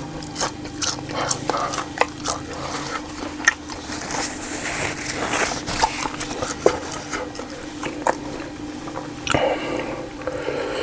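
Close-miked chewing of meatballs in spicy balado sauce, with irregular wet smacks and sharp mouth clicks. A faint steady hum runs underneath.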